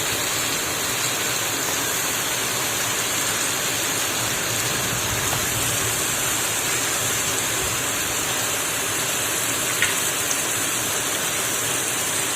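Heavy rain falling steadily, an even rushing hiss, with one light click about ten seconds in.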